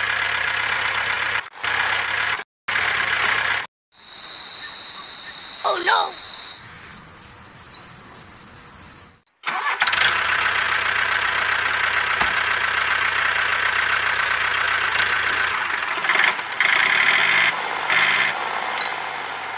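Steady motor-like running sound, broken by several abrupt cuts. In the middle, a stretch of high steady electronic tones and a short rising whistle-like sound take over.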